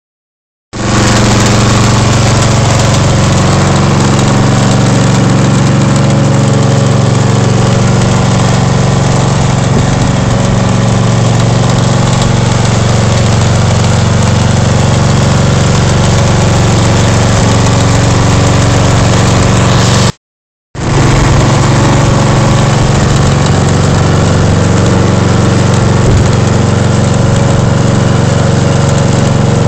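Ride-on lawn mower engine running at a steady speed. The sound drops out for about half a second a little past two-thirds of the way through, then resumes unchanged.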